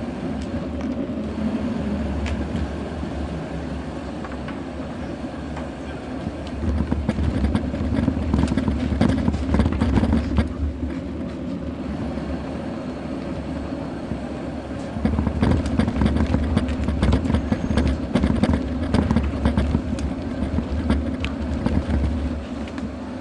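Bicycle and action camera rattling and rumbling as they roll over paving stones, the jolts of the rough surface shaking the camera. The rattling grows rougher for a few seconds about a third of the way in, and again for most of the last third.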